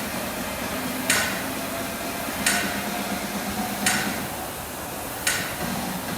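Sharp clacks repeating at an even pace, about one every second and a half, like equipment knocking with each rep.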